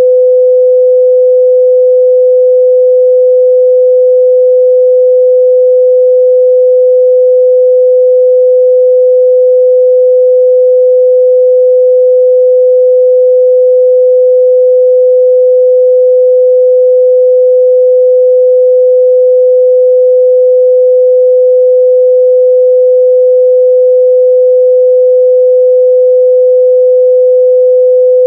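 A steady, loud 505 Hz pure sine-wave test tone, held at one pitch and level with nothing else.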